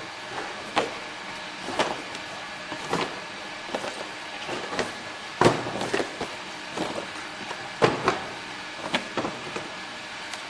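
Two-flap hot melt box sealing machine (GN-F02) running with a steady mechanical noise, and a sharp clack about once a second as each carton is fed through its rollers and flap guides.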